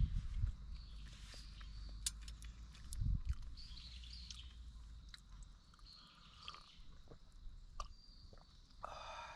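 Small birds chirping intermittently over steady outdoor background noise, with scattered sharp clicks and a low thump about three seconds in.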